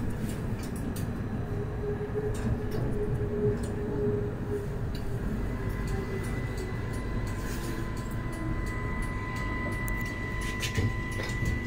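Cab interior of an Edinburgh CAF Urbos 3 tram in motion: steady wheel-and-rail rumble with motor hum, joined about halfway in by a steady high whine as the tram rounds a curve. A few sharp clicks near the end.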